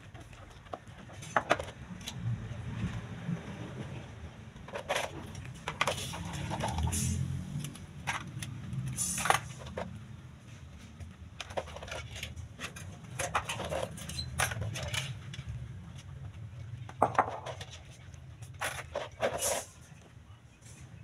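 Plastic clothes hangers and pegs clicking and clinking against a clothesline as laundry is handled, in irregular scattered knocks over a low steady rumble.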